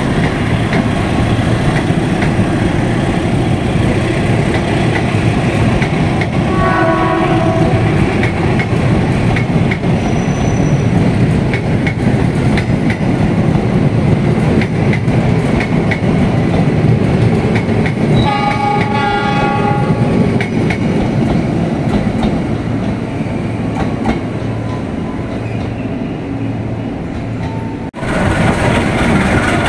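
Passenger train rolling through the station, its wheels clicking over the rail joints. A train horn sounds twice: a short blast about a quarter of the way in, then a longer one a little past halfway.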